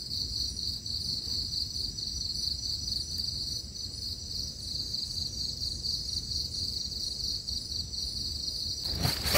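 Steady high-pitched chorus of insects, continuous and unchanging, over a low background rumble. A few sharp knocks come right at the end.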